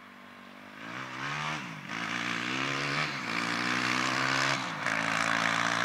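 Four-wheeler (ATV) engine pulling away and accelerating through its gears, getting louder as it approaches. The engine pitch climbs, drops at a gear change about two seconds in, then holds fairly steady with another brief dip near the end.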